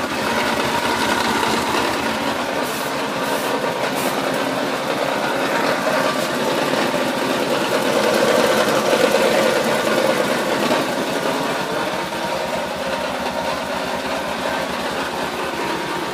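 Honda TRX650 ATV's single-cylinder engine running steadily with a fast mechanical rattling, briefly a little louder about eight to ten seconds in. The rattle is an extraneous grinding noise whose cause the owner does not know.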